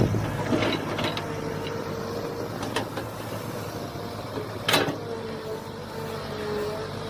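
Mini excavator running, with a steady engine hum and a steady whine. A few sharp knocks come through it, the loudest about five seconds in.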